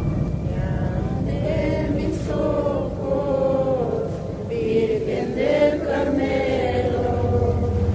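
Music with chant-like singing voices over a low steady drone.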